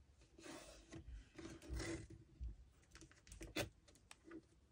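Hands rubbing and pressing down paper masking tape along the edge of a sheet on a clipboard: soft brushing strokes with a few light knocks, the sharpest one about three and a half seconds in.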